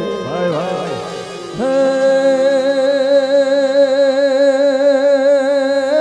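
Live Gujarati garba song: a male singer slides through a melodic run, then holds one long note from about one and a half seconds in, over the band's accompaniment.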